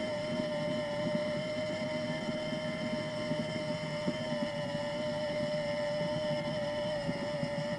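The RC excavator's onboard motor runs steadily with an even, unchanging whine, heard from the cab, over a rough low rattle of vibration.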